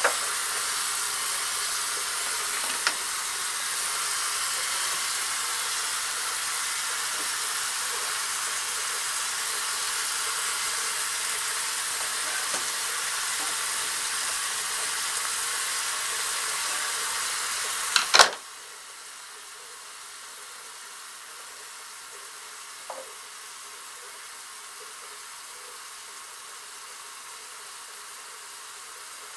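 Water running from the sink faucet and down the drain, a steady hiss heard from under the vanity while the drain trap is tested for leaks. About 18 seconds in there is a clunk and the flow stops, leaving only a faint hiss.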